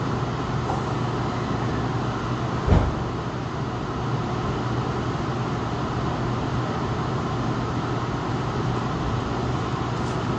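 Cabin noise inside a Tokyu 5000 series commuter train as it pulls away from the platform: a steady hum with one thump about three seconds in.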